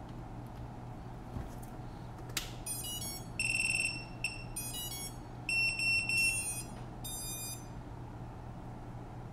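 Diatone Roma F35 quadcopter powering up on its battery: a click about two and a half seconds in, then its ESCs play their startup beeps through the brushless motors, a run of high beeping tones at several pitches that lasts about five seconds.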